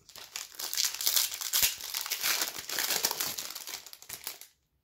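Foil wrapper of a hockey trading card pack crinkling as the pack is opened and the cards are pulled out; the crackling goes on for about four seconds and stops near the end.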